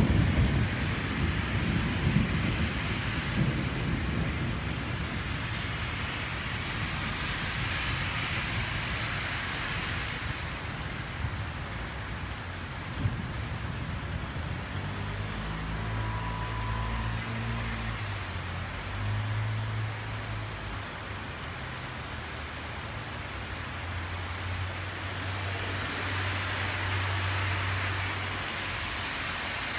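Thunder rumbling and dying away over the first few seconds, then steady rain noise that swells twice, with a faint low hum underneath in the second half.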